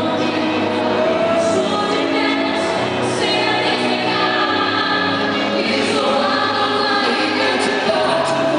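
Gospel worship music with voices singing held notes, choir-like.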